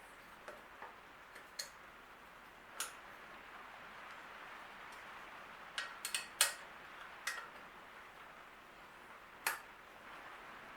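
Irregular metal clicks and clinks from tools and bicycle parts being handled during assembly, about a dozen in all, with a quick cluster about six seconds in.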